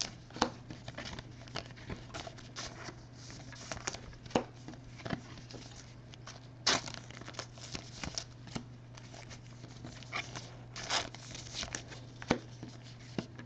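Trading cards being handled and slid into soft plastic penny sleeves: scattered light rustles and small plastic clicks, over a faint steady hum.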